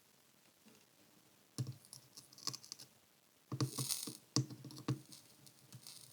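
Scattered small clicks, taps and scratches of tools and wires being handled on a workbench during soldering. The clicks come irregularly from about a second and a half in, with a busier cluster and a short scratchy hiss around the four-second mark.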